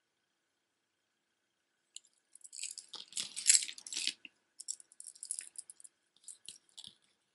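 Beaded necklaces clicking and rattling as they are handled: hematite and plastic beads knocking together in clusters of small sharp clicks, starting about two seconds in and loudest in the first cluster.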